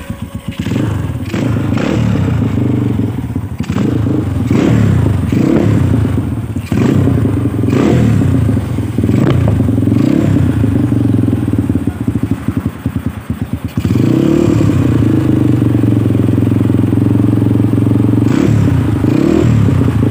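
Yamaha Scorpio single-cylinder four-stroke trail-bike engine running through a custom stainless twin-silencer racing exhaust. It is blipped again and again, the pitch rising and falling about once a second, then held steady for several seconds, with two more quick revs near the end.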